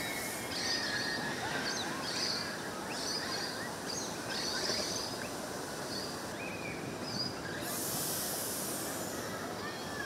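Birds chirping repeatedly over steady background noise from an Adelaide Metro 4000 class electric train standing at the platform. A high hiss comes in about eight seconds in.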